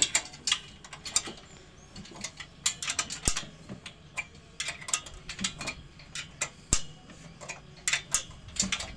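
Spanner turning a nut on a bolt through the steel frame of a swing bench: irregular metallic clicks and ticks, several a second, as the tool works and knocks against the frame.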